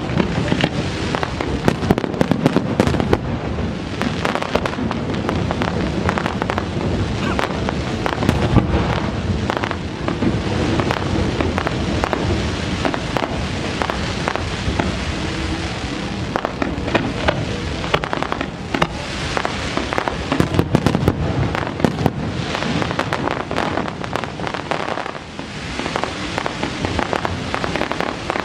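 Fireworks display: a dense, continuous barrage of bangs and crackling.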